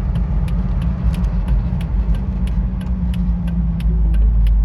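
Jeep TJ driving, with steady engine and road rumble heard from inside the cab and a light regular ticking about three times a second.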